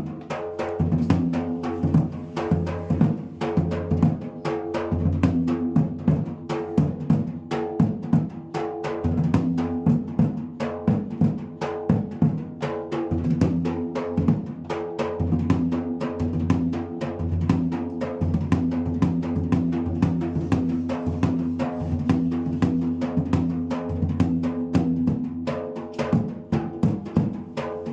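Dhola drums played in a fast, dense rhythm, many strokes a second, with a held pitched melody running underneath: a sound check of a freshly repaired dhola.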